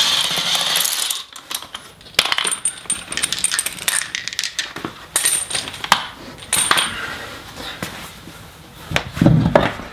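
DeWalt cordless impact wrench hammering a lug nut loose for about a second. It is followed by a run of sharp metallic clinks as the loose lug nuts are handled and dropped, and a heavy low thump near the end as the wheel and tyre come off the hub.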